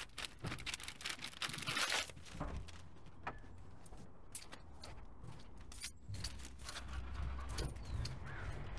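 Plastic bag crinkling as it is handled for about two seconds, then softer scuffs and scattered clicks while walking.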